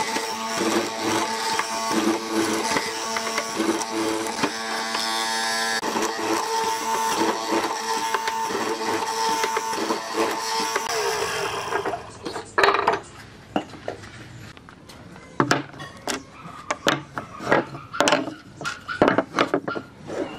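Hollow-chisel mortiser running, its motor humming steadily as the chisel and auger bore a mortise into a wooden beam. About twelve seconds in the machine sound stops and is followed by a run of sharp wooden knocks as cut wooden pieces are set down on a table.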